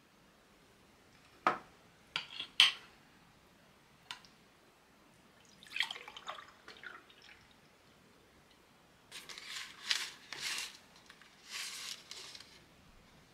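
A metal spoon clinks against a ceramic bowl a few times. Then coffee is poured from a glass server into a mug, and near the end the paper and plastic packaging of a chocolate box rustles and crinkles.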